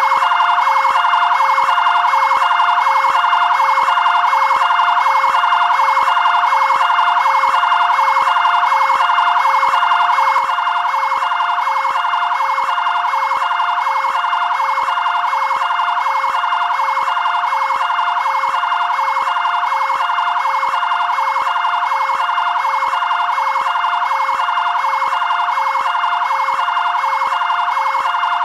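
Fire department area-command vehicle's two-tone siren, switching quickly and evenly between a lower and a higher note. It drops a little in loudness about ten seconds in.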